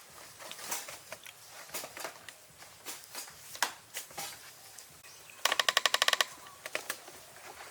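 Scattered light taps and clicks, then a loud rapid rattle of about a dozen sharp clicks lasting just under a second, about two-thirds of the way through.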